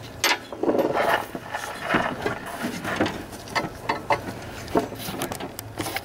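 Steel mower-deck parts clinking and knocking as they are handled: a pulley bolt and belt-keeper bracket worked loose and lifted off an idler pulley. There is an irregular run of sharp clicks and knocks, a few each second.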